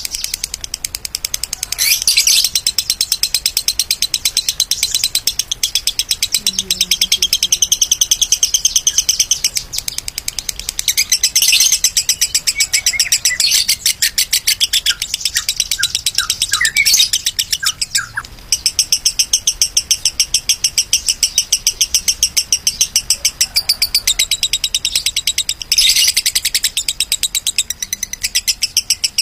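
Adult lovebird singing a long, rapid chattering trill of high chirps, many to the second, broken only by a few brief pauses.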